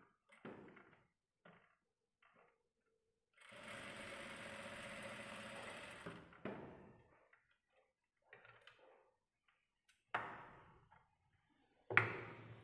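Jack single-needle industrial sewing machine running a seam in one steady burst of about three seconds, with a few short knocks before and after as the fabric is handled.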